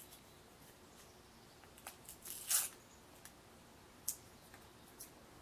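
Faint rustling and short tearing of paper crayon wrappers being peeled off by hand, the loudest rip near the middle, with a light tick about four seconds in.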